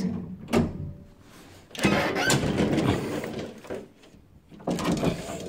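A latch clicks, then the collapsible metal scissor gate of an old Keighley gated lift car is slid open with a long rattle, followed by more clatter of the gate near the end.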